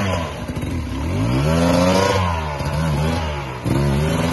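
Sherco 250 enduro bike engine revving up and down several times as the bike is pushed up a steep muddy climb, the highest rise about two seconds in.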